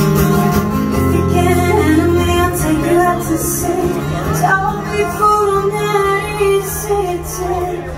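Live amplified music: a singer holding long, wavering notes over a steady bass accompaniment.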